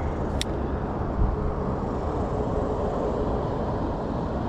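Steady low outdoor rumble, with a single sharp click about half a second in.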